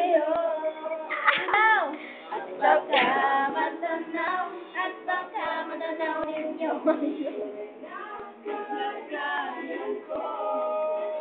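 A group of teenagers' voices going at once: shouting, whooping and sing-song calling over one another, with no clear words and loud swooping rises and falls in pitch.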